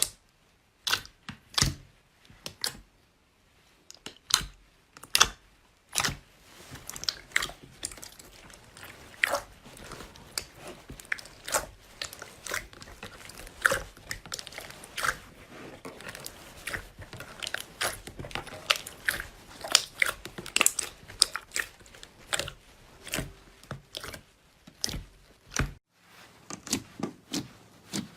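Slime being squeezed and pressed by hand, giving irregular crackling clicks and pops: a few separate clicks at first, then dense crackling from about six seconds in.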